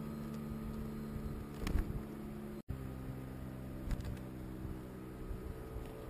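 A steady low hum made of several held tones, with a few light taps over it; the sound cuts out for an instant about two and a half seconds in.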